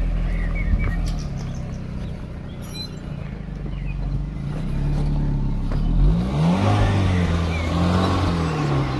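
Nissan March's engine running and then revved, its pitch climbing about six seconds in as a rushing noise joins it.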